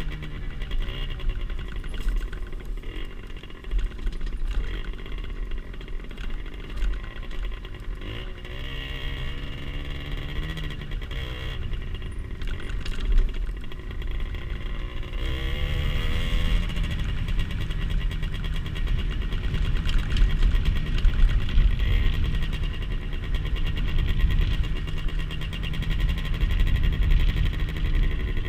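Rieju SMX 50cc two-stroke motorcycle engine running under way, its revs rising and falling several times with the throttle.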